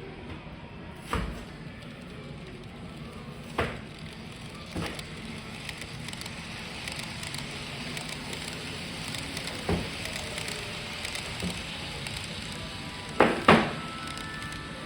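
Steady hiss-like running of N-gauge model trains on a shop layout, with a few sharp knocks, the loudest two close together near the end.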